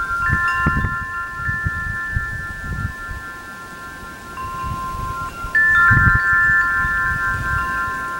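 Clear ringing tones like wind chimes, at a few steady pitches, with new notes struck a few times that ring on; wind gusts rumble on the microphone. The recordist takes the sound for grasshoppers and likens it to cymbals.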